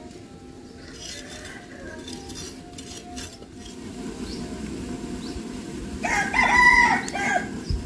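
A rooster crowing once, loud, about six seconds in, over a low steady rush. Before it, in the first three seconds, a few short scrapes of a knife peeling a radish.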